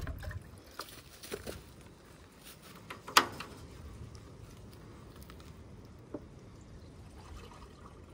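Water scooped from a bucket and poured into a rabbit's water bowl in a wooden wire-fronted hutch, with a few light knocks and one sharp clack about three seconds in, then a softer knock near six seconds.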